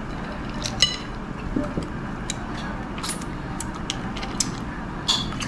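Small shells of siput sedut snails clinking against a china plate, with a few short sucking sounds as the snails are sucked from their shells, over a steady low background noise.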